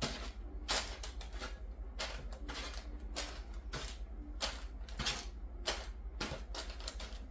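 Kitchen wrap and baking-sheet liner rustling and crinkling in short, irregular bursts as hands lift raw sausage balls off the wrap, set them on the lined sheet and smooth the liner flat. A low steady hum runs underneath.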